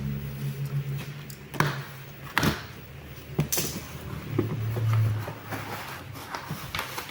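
Handling noises: scattered sharp knocks and clicks, a few of them louder, with a short low hum about two-thirds of the way through.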